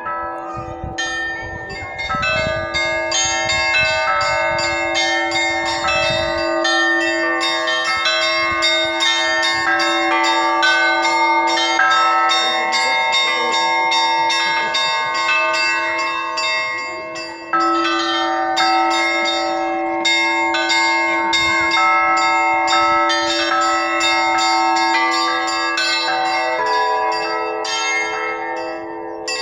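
Russian Orthodox church bells rung together in a continuous peal: quick strikes on the small, high bells over the middle bells, with a lower bell's tone sounding steadily underneath. The ringing eases for a moment just past halfway, then comes back in full.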